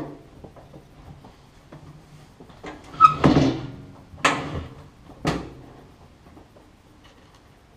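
Knocks from a microwave oven being handled and shifted on the worktop: a short click at the start, then a loud knock about three seconds in, followed by two more knocks about a second apart.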